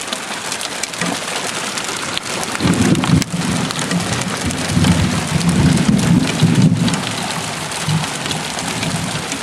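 Heavy hail and rain pelting down, a dense hiss full of small ticks of hailstones striking. A louder low rumble rises about two and a half seconds in and fades by about seven seconds.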